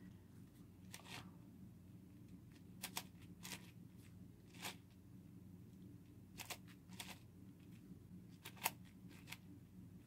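Faint, scattered clicks and clacks from a plastic 8x8x8 puzzle cube as its layers are turned by hand, about a dozen over the span.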